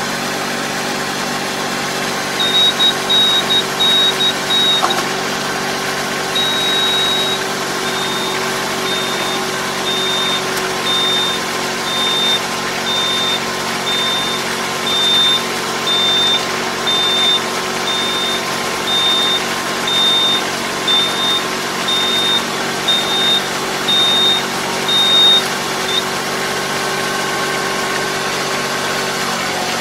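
Tractor engine running steadily while a high-pitched electronic beeper sounds in short, evenly spaced pulses, about one every three-quarters of a second, with one longer beep a few seconds in, stopping a few seconds before the end. This is the warning beeper of the harrow's electric hydraulic folding control as the harrow wings fold up.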